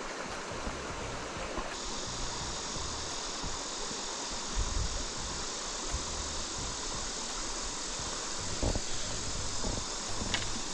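Steady rush of flowing stream water, with a few soft low thumps.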